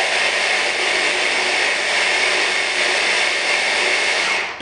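Electric hand blender with a chopper attachment running steadily, grinding roasted hazelnuts at the stage where they are still being pulverised into powder rather than paste. The motor stops near the end.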